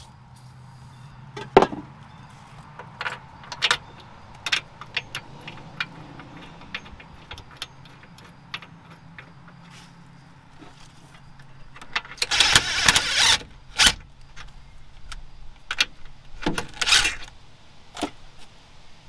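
Metal clicks and clinks of hand tools and bolts as bolts are started without being tightened. There is a longer rattling stretch about two-thirds of the way through and a shorter one near the end.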